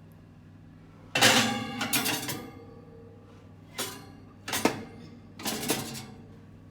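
Metal kitchenware clattering and scraping in four bursts, the longest about a second in and three shorter ones after, over a low steady hum.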